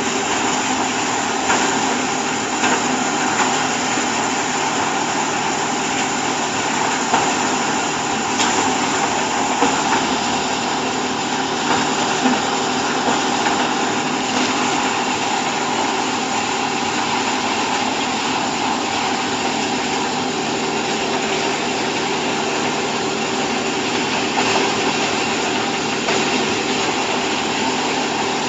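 Hydraulic baling and bagging press running steadily: a continuous motor and pump hum with a few brief knocks now and then.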